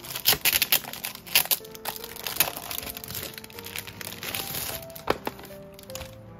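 Packaging crinkling and crackling in irregular bursts as it is handled and opened, loudest in the first couple of seconds, with a sharp crack about five seconds in, over background music.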